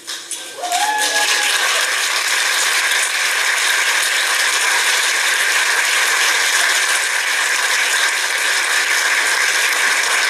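Wedding guests applauding, a dense, even clatter of many hands clapping that starts within the first second and stays level, with a brief voiced cheer about a second in.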